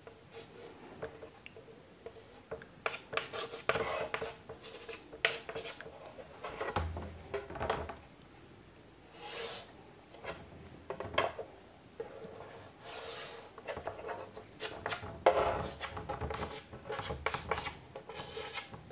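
Chalk scratching on a chalkboard as straight lines and arrows are drawn along a wooden ruler: many short scratches and taps, with a couple of longer steady scrapes about nine and thirteen seconds in.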